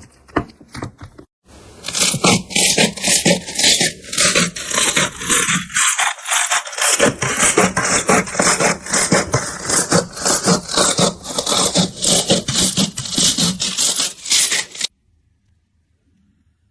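Crunchy slime being pressed and worked by hand, giving a fast, steady run of crackly scraping strokes. It starts about a second in and cuts off suddenly near the end.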